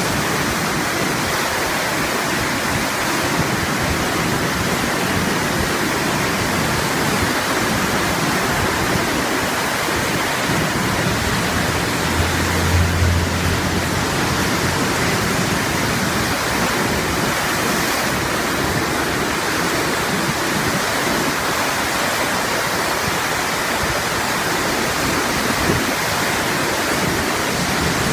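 Ottawa River floodwater pouring through the wide-open spillway of the Chaudière Falls hydro dam: a steady, loud rush of churning whitewater at high flood flow, with a brief low rumble about halfway through.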